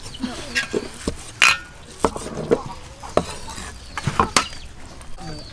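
Cleaver chopping crispy roast pork belly on a wooden chopping block: about eight irregular knocks of the blade through the meat into the board, one with a short metallic ring about a second and a half in.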